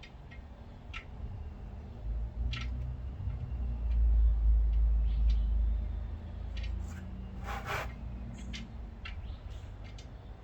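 Scattered light clicks and knocks of hand tools being worked, over a low rumble that swells for a few seconds in the middle, with one short rushing noise about three-quarters of the way through.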